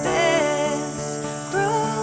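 Background music with a wavering melody line over sustained notes.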